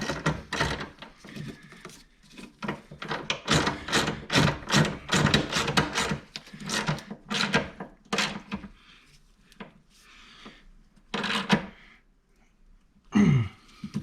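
Hand wrench work on a snowmobile skid-frame mounting bolt: irregular metallic clicks and clanks of the tools on the bolt and frame, dense for the first half and sparser after. A short sound falling in pitch comes near the end.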